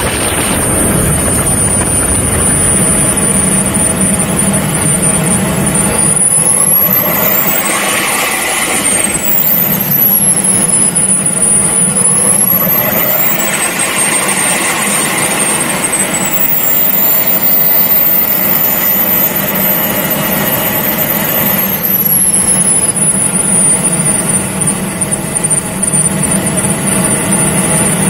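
Engines of a large radio-controlled A-10 model jet whining as it taxis on asphalt, heard from right under its belly. The high whine rises and falls several times with the throttle over a steady rumble of the wheels and air noise.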